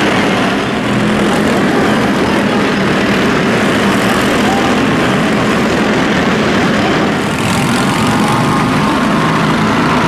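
Engines of several small arena stock cars running together, a loud, steady drone inside an indoor arena.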